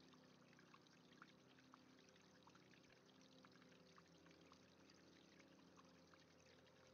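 Very faint water pouring from a chute onto a small wooden model waterwheel as it turns, with occasional light ticks.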